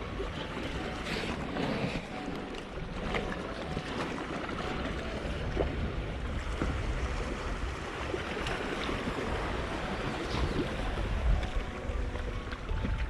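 Steady sea noise of waves washing on the rocks, with wind rumbling on the microphone.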